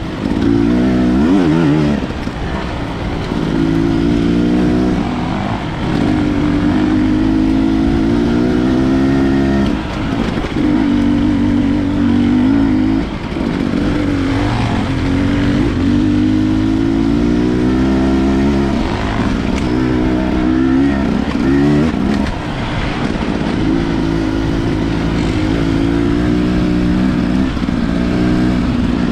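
Enduro dirt bike engine being ridden hard, its pitch climbing under throttle, dropping off and climbing again every few seconds as the rider works the throttle and gears.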